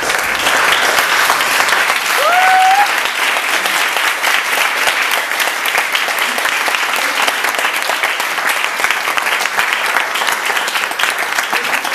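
Audience applauding, many hands clapping steadily, with one short rising whoop about two seconds in.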